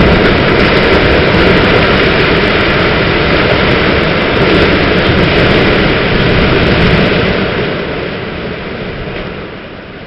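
Long, loud rumble of an explosive building demolition, as the charges go off and a power-station boiler house collapses. The rumble holds steady for about seven seconds, then fades away toward the end.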